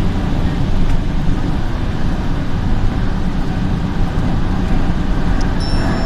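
Light rail train running between stations, heard from inside the car: a steady rumble and rolling noise. Thin high squeals come in near the end.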